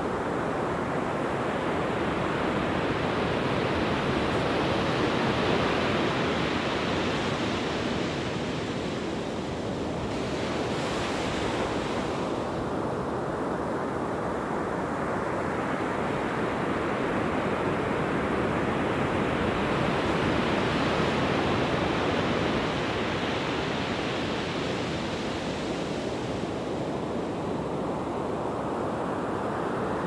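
Pacific Ocean surf breaking and washing up the beach, a continuous rush that swells and eases several times, with wind buffeting the microphone.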